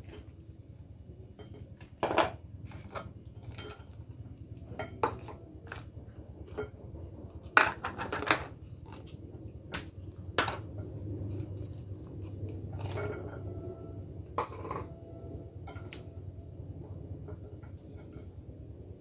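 Plastic tubs and a white plastic serving fork clinking, tapping and scraping against a clear glass mixing bowl as shredded vegetables are tipped in and tossed together. The taps are irregular, with the loudest about two seconds in and a cluster around eight seconds in.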